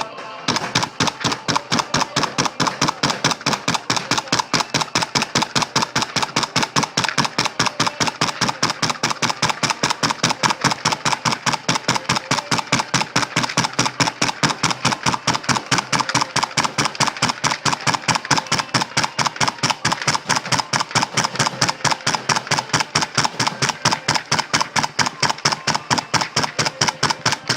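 A machine tool running with a steady, even rhythm of sharp mechanical strokes, about three to four a second.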